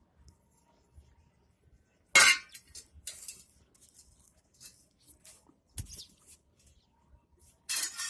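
Stainless steel dog bowl clinking and knocking on a concrete floor as it is handled: a few scattered sharp clinks with a short ring, the loudest about two seconds in, another near the end, and a dull knock in between.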